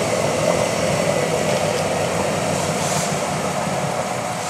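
Old pickup truck's engine held at high revs, a steady drone, while the truck sits stuck in deep mud with its wheels spinning; the revs ease a little near the end.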